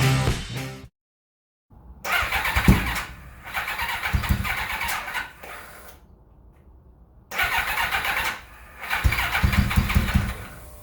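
Turbocharged Kawasaki ZXR750 inline-four motorcycle engine starting and running roughly, coming on in uneven surges with quieter stretches between: the engine runs, but not nicely.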